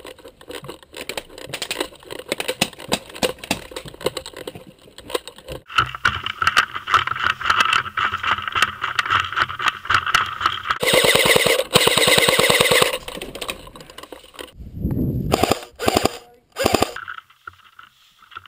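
Airsoft guns firing on full auto: fast mechanical rattling in long bursts over a low motor hum. The loudest, densest burst comes a little past the middle, followed by a few short bursts.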